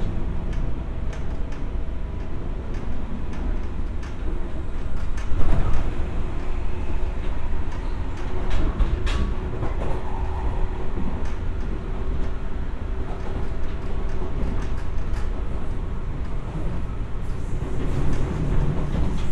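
A JR 201-series electric train heard from inside a passenger car while running: a steady low rumble of wheels on rail, with a few sharp knocks.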